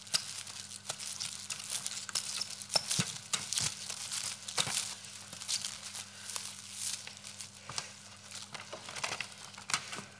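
Long loose plastic strips being pulled, crumpled and tangled: a dense, irregular crinkling and rustling with many small crackles, over a steady low hum.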